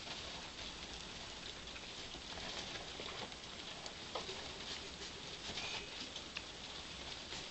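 Pet fancy rats feeding from a bowl and shuffling in wood-shaving bedding: a steady run of small clicks and rustles.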